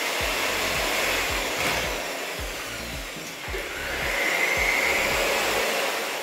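Handheld electric paddle mixer running, stirring tile adhesive in a plastic bucket. Its motor dips about halfway through, picks up again and begins to fade near the end.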